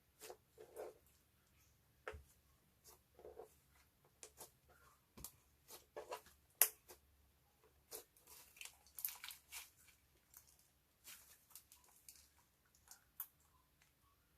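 Clear slime being worked by hand with makeup mixed in: faint, irregular sticky clicks, crackles and squishes, several a second, with one sharper click midway.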